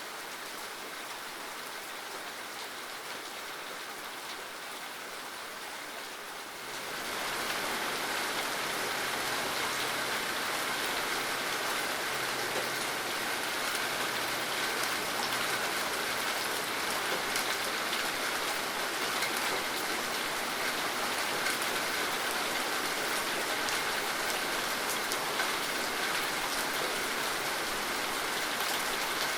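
Steady rainfall, a recorded rain sound effect, falling evenly with no pattern of drops or thunder. It grows noticeably louder about a quarter of the way in, then holds steady.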